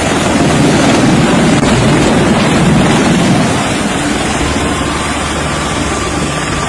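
Bell Boeing V-22 Osprey tiltrotor lifting off, a loud steady rush of rotor and turboshaft engine noise with wind buffeting the microphone. It is heaviest for the first three seconds or so and then eases as the aircraft climbs away.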